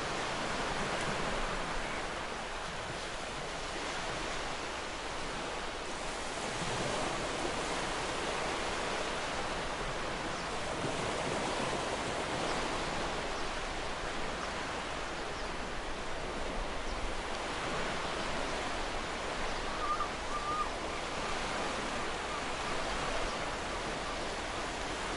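Ocean waves washing on a shore in a steady, continuous wash with gentle swells in level. A faint brief chirp sounds near the end.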